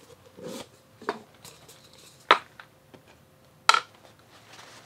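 Small steel staking-set tools clinking as they are handled and set into a small container: a few separate sharp clicks, two of them louder, a little past two seconds in and near four seconds.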